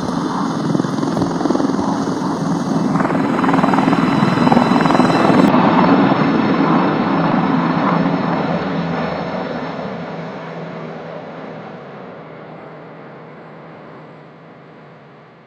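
Helicopter rotor and engine noise that swells to a peak about five seconds in, then fades steadily away, as of a helicopter passing over and flying off.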